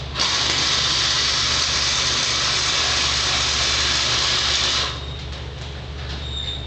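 90-amp flux-core wire welder laying an overhead weld bead: the arc gives a steady hiss that starts at once and stops abruptly about five seconds in. A low steady hum runs underneath.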